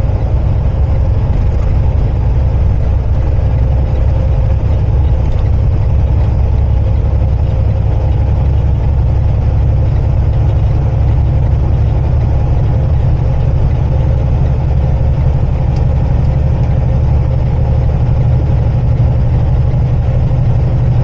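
Steady low drone of a semi truck's diesel engine and road noise, heard from inside the cab while the truck drives slowly uphill.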